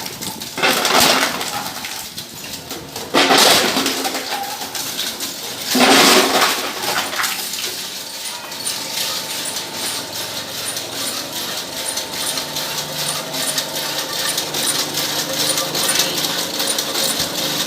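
Metal shredder machine crushing tin cans, a metallic clattering and grinding. There are three loud surges in the first seven seconds, then it runs more evenly.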